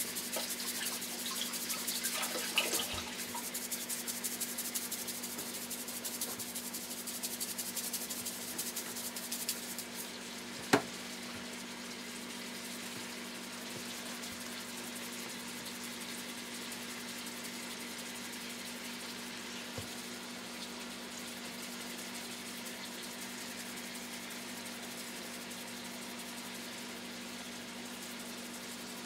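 Grouse frying in a pan on a gas stove: a busy crackling sizzle for the first ten seconds, then one sharp clack, then a steadier, quieter sizzle over a constant low hum.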